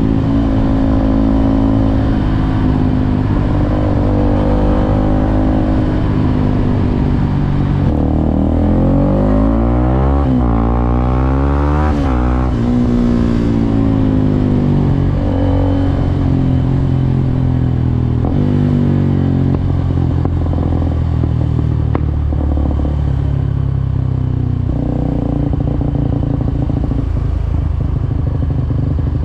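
Suzuki Gixxer SF 250's single-cylinder engine running under way on the road. The engine note drops and then climbs again around ten seconds in as the bike slows and speeds back up, and is otherwise fairly steady.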